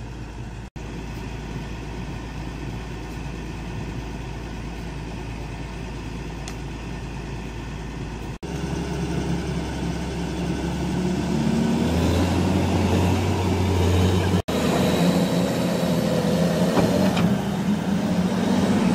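Heavy diesel engines of a Case 1650K crawler dozer and a dump truck running as the dozer pushes the stuck truck with its blade. The engine note gets louder and rises about halfway through, then holds as a steady drone. It breaks off abruptly three times where the footage is cut.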